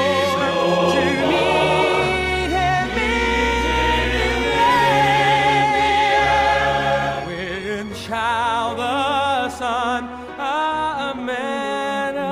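Recorded gospel song: several voices sing long held notes with vibrato over steady bass accompaniment, breaking into shorter phrases with brief pauses after about eight seconds.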